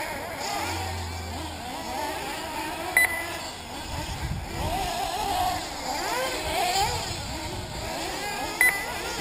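Several 1/8-scale nitro RC buggy engines revving up and down as the buggies race around the track, their whine rising and falling in pitch. Two short high beeps, about three seconds in and near the end.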